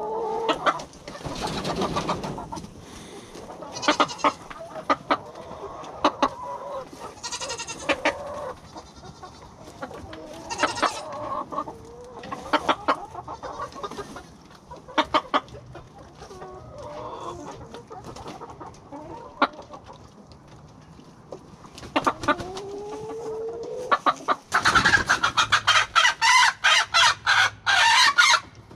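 A flock of chickens clucking and calling in short, scattered calls, with a louder burst of rapid, repeated calls near the end.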